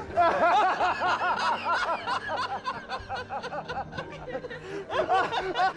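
Men laughing hard, rapid repeated 'ha-ha' bursts, easing off briefly around four seconds in, then swelling again near the end.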